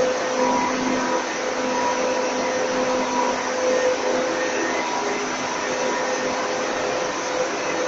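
Water-pump room machinery running steadily on emergency generator power: an even whirring rush with a faint steady hum laid over it, from the booster pumps and ventilation fans.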